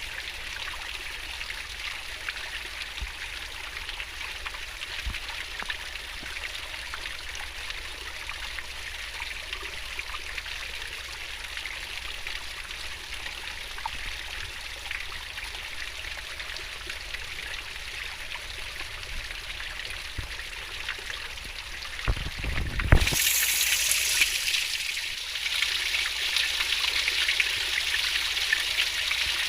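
River water rushing and gurgling in a steady, even babble. Near the end a brief low rumble breaks in, and the water then runs louder and brighter.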